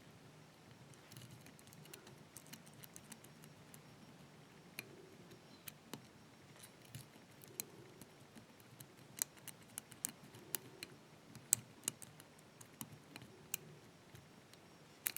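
Faint, irregular clicks and light scraping of a lock pick and tension wrench working the pin stacks inside a Stanley 5-pin brass barrel padlock during single-pin picking. The clicks come more often in the second half.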